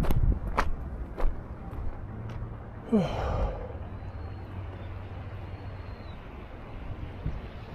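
A few sharp knocks in the first second or so, then a person's sighing exhale about three seconds in, over a steady low rumble.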